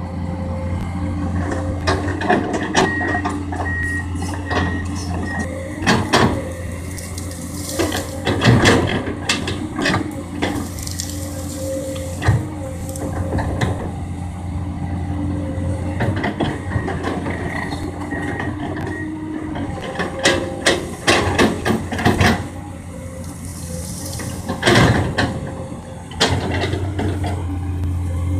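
Komatsu PC200 excavator's diesel engine running steadily under working load, with frequent knocks and clattering as the machine clears ground.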